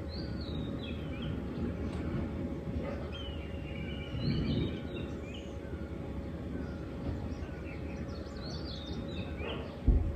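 Wild birds chirping and trilling in short phrases over a steady low background rumble, with one soft falling note repeating about every three-quarters of a second. A brief low thump comes near the end.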